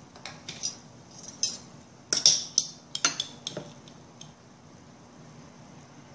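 Metal fork clinking against a glass jar while fishing out fermented carrots: a run of sharp clinks, loudest a little after two seconds, dying away after about four seconds.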